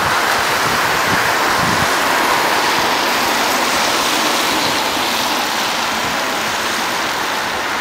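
Street traffic on a wet road: a steady hiss of car tyres on wet asphalt as cars pass close by.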